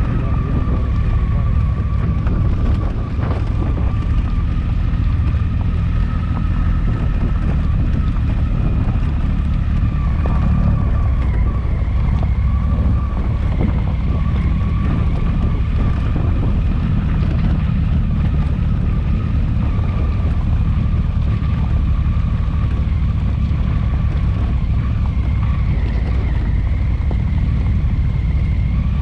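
A big adventure motorcycle riding at a steady pace, its engine droning under heavy wind rumble on the camera microphone, with a faint steady whine above.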